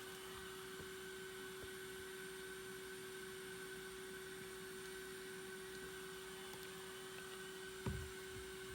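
A steady, faint electrical hum with one constant mid-pitched tone over light hiss, and a single soft low thump near the end.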